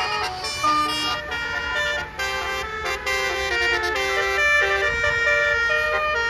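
Bus telolet horn playing a quick melody of many short changing notes, several tones at once, over a low steady rumble.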